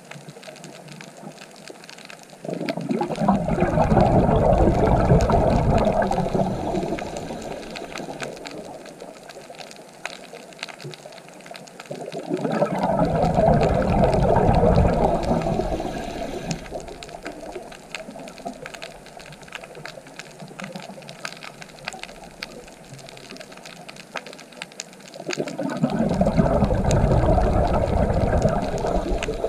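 Scuba diver's exhaled bubbles gurgling past an underwater camera in three long bursts, about ten to thirteen seconds apart, each swelling and fading over several seconds. A faint crackle continues between the breaths.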